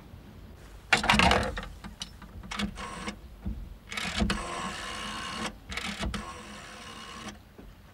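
Rotary telephone dial being wound round and whirring back several times as a number is dialled, each return a rapid mechanical clicking lasting up to about a second and a half. It starts with a louder clatter about a second in.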